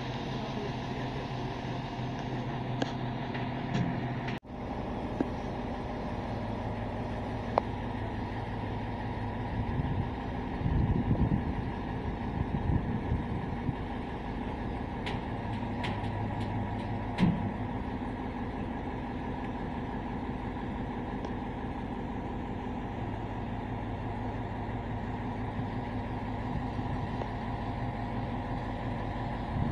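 Truck-mounted crane's engine running steadily, with a louder rumble about ten seconds in and a few sharp clicks a little later.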